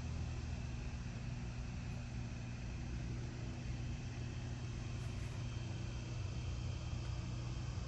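A steady low hum under an even background hiss, unchanging throughout, like a running machine or distant traffic heard outdoors.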